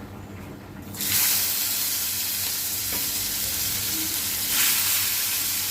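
Small sea chapila fish, rubbed with turmeric and salt, going into hot oil in a frying pan: a sudden loud sizzle starts about a second in and carries on steadily, swelling again about four and a half seconds in.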